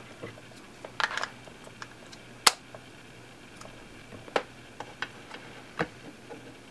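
Scattered plastic clicks and taps as an LP-E8 camera battery is pushed into a plastic battery holder and the holder is set down on a desk. The sharpest click comes about two and a half seconds in, with smaller taps around it.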